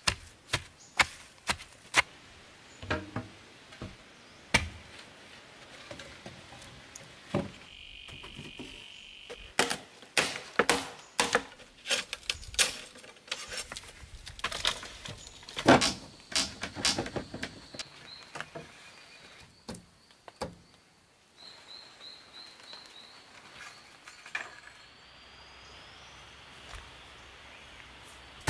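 Irregular sharp knocks and chops of bamboo and wood being cut, tamped and fitted together, loud and close, over background insect chirping. The knocking stops after about 18 seconds, leaving the insects and a few short high chirps.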